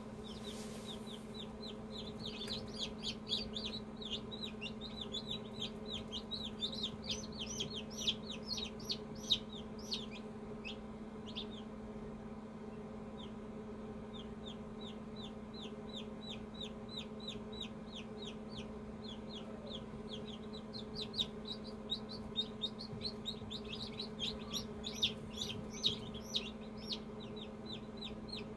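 Newly hatched chicks peeping in an incubator: rapid runs of short, high cheeps, some louder than others, over a steady low hum.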